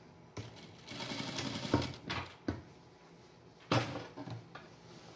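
Industrial sewing machine running a short burst of stitches, about a second long, through layers of duvet fabric and acrylic batting. A few knocks from handling the bulky fabric follow, the loudest a sharp one a little before the end.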